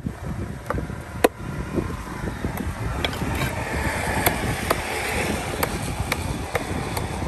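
Heavy curved cleaver-like knife cutting through a large fish fillet and striking a wooden log chopping block: sharp knocks at irregular intervals, about ten in all, the loudest a little over a second in, over a steady low rumble.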